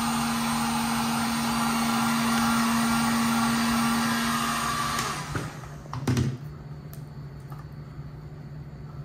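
Electric heat gun blowing steadily with a constant motor hum, warming vinyl wrap to soften it so it can be stretched and tucked. It shuts off about five seconds in, followed by a brief knock near six seconds.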